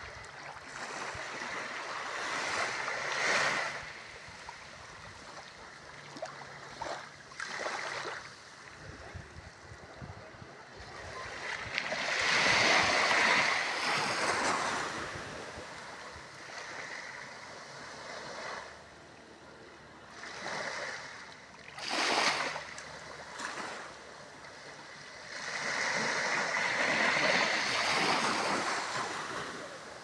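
Small waves washing up onto a sandy beach: a hiss that swells and dies away in surges every few seconds, the biggest about halfway through and near the end.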